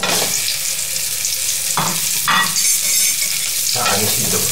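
Cauliflower florets dropped into hot oil in a metal karai, setting off a loud sizzle the instant they go in. A metal spatula scrapes the pan a few times as they are stirred.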